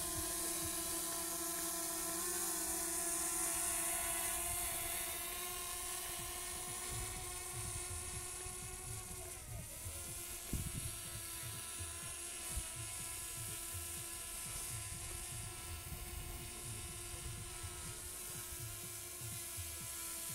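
Small quadcopter camera drone hovering a few metres away and then climbing, its propellers giving a steady whine of several tones that dips briefly in pitch about ten seconds in. Irregular low rumbles, like wind on the microphone, come and go in the second half.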